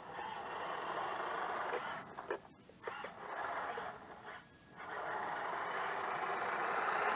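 HG P802 8x8 RC truck's electric motor and drivetrain running with a steady whirring noise that drops out briefly twice as the throttle is let off.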